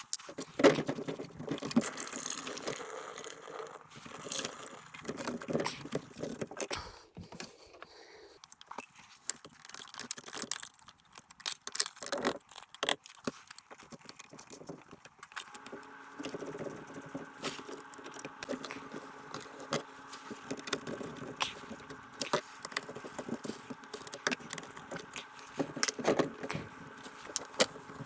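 Metal tools and plumbing parts clattering, rattling and scraping during work on a clogged garbage disposal and drain line; about halfway through, a motor starts running steadily with a hum under the continued clatter.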